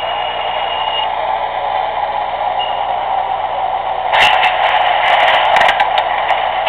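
MTH O-gauge R32 model subway train running, a steady hum of running noise with a high tone that fades about a second in. From about four seconds in come a run of sharp clicks.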